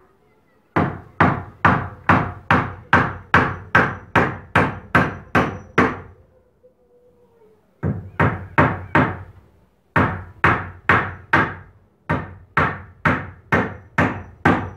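Hammer driving nails through a wooden bracing batten into eucalyptus shoring posts: a steady run of sharp blows, about two to three a second, each with a short ring. The blows come in runs broken by short pauses, the longest about a second and a half near the middle.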